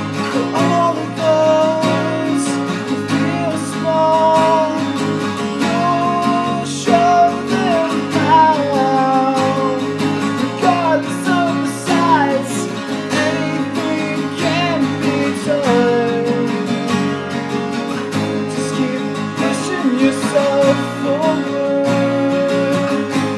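Two acoustic guitars strumming chords together in an instrumental break, with a melody line moving over them.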